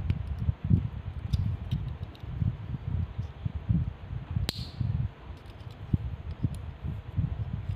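Fingers handling a small white plastic brake-light switch part close to the microphone, giving irregular low rubbing and bumping, with one sharp plastic click about halfway through.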